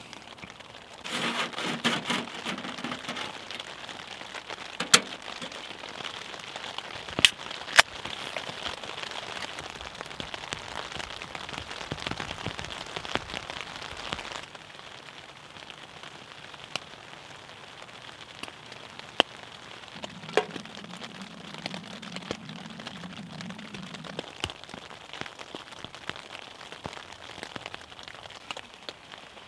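Rain pattering steadily on the fabric of a pyramid tent, heard from inside, with a few sharp clicks scattered through it. The patter gets quieter about halfway through.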